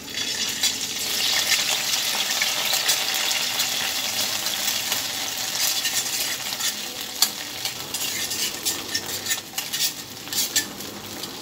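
Garlic and Schezwan chutney sizzling in hot oil in a kadai, stirred with a steel spoon that scrapes and clicks against the pan, the clicks coming more often in the second half.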